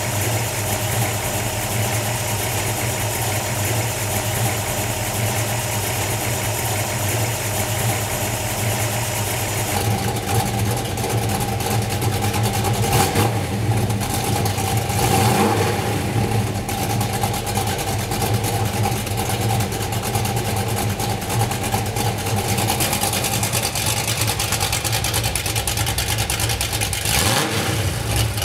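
Custom-built 1970 Ford Maverick's engine idling steadily through its open electric exhaust cutouts, with a few quick throttle revs about halfway through and again near the end.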